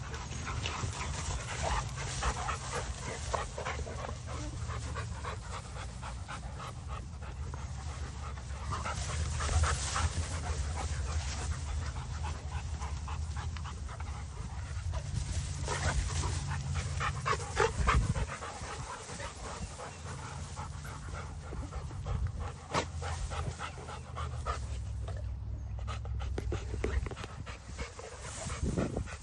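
Dogs panting hard, out of breath after running and playing, with a steady low rumble underneath.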